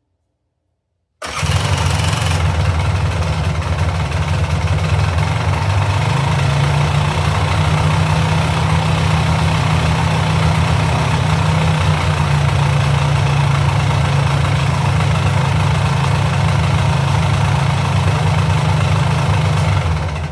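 Polaris Sportsman 400 ATV's liquid-cooled two-stroke engine running at a steady speed, coming in suddenly about a second in.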